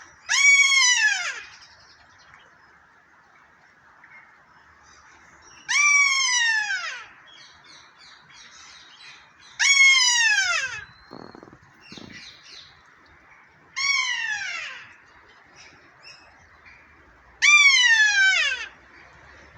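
Kea, the New Zealand alpine parrot, squealing like an air horn: five loud, drawn-out calls about four seconds apart, each lasting about a second and sliding down in pitch.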